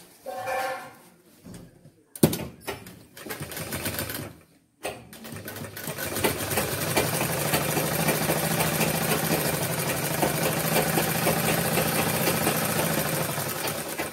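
Sewing machine stitching: a sharp click about two seconds in starts a short run. After a brief stop comes a long steady run of rapid needle strokes over a low hum, easing off just before the end. A short pitched sound is heard at the very start.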